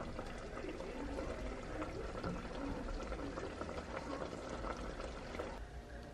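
Hot rib and cassava broth being poured out to serve: a steady liquid pour that stops abruptly near the end.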